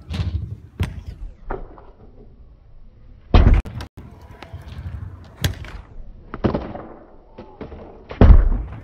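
Stunt scooter tricks on a skatepark: sharp clacks and knocks of the deck and wheels striking the ground, with two heavy landing thuds, one about three seconds in and the loudest near the end.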